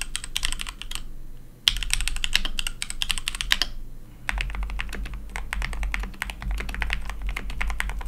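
Fast typing on a Keychron K6 aluminium mechanical keyboard with Gateron Red switches, first in its stock form, with short pauses. About four seconds in it changes to the same keyboard after mods for better sound and feel, with white keycaps; here the key clicks have a deeper sound.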